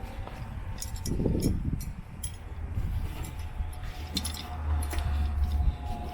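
Scattered light clinks and clicks of strap buckles and hardware as a new vehicle gear bag and its mounting straps are handled, over a low rumble.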